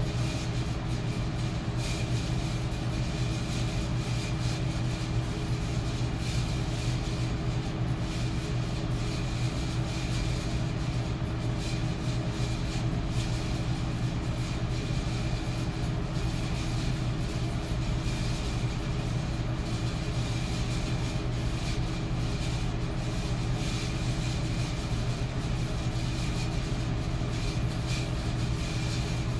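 Metal electric fan running steadily: a constant whoosh of moving air over a low motor hum, with a faint steady tone above it.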